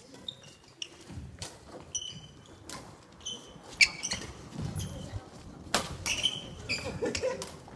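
Badminton doubles rally: several sharp smacks of rackets striking the shuttlecock, the loudest about four seconds in, mixed with short high squeaks of shoes on the wooden gym floor.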